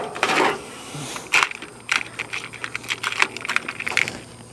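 Small metal parts clinking and scraping as a rebuilt lawnmower carburetor is fitted in place, a run of irregular clicks and taps.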